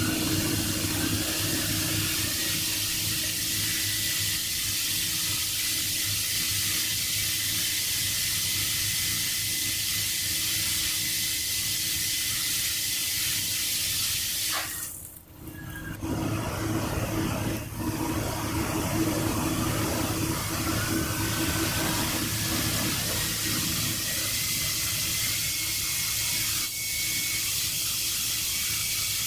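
Steady rushing hiss of air from a pressure test rig loading a glass balustrade panel, over a low hum. A faint whine climbs in small steps in the second half as the load is raised, and the sound breaks off briefly about halfway.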